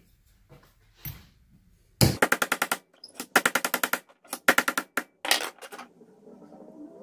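A metal hand tool rasped hard across a copper piece clamped in a bench vise: four short bursts of rapid chattering strokes, about a dozen a second, between about two and six seconds in. A couple of light knocks come before them.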